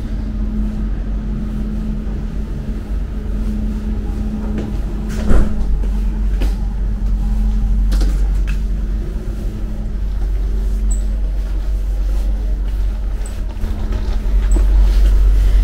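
Regional Express train heard from inside the carriage: a steady low rumble with a constant hum, broken by a few knocks and rattles, the loudest about five seconds in.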